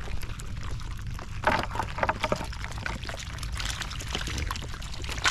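Shallow shrimp-pond water splashing and pouring, with a few louder splashes between about one and a half and two and a half seconds in, over a steady low rumble.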